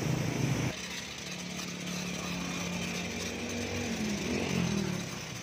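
A pressurised water jet hits the van's body for under a second and stops abruptly. A motor then runs steadily with a low, even hum, its pitch wavering briefly near the end.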